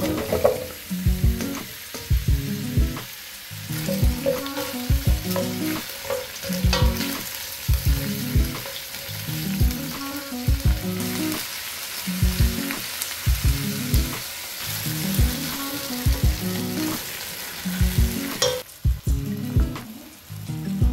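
Chopped onions and carrots sizzling as they fry in hot olive oil in a stainless steel pot. The sizzle cuts off sharply near the end, over background music with a steady beat.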